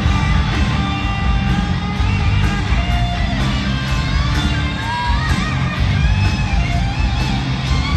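Live hard-rock band playing at full volume: electric guitars over bass and drums, with bent, gliding guitar notes.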